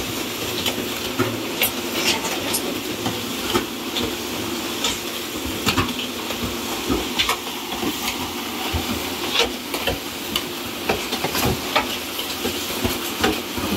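Pan concrete mixer (600 kg batch) running, its arms churning wet concrete, with irregular knocks and clatter of aggregate a few times a second. A steady hiss of water sprays into the pan.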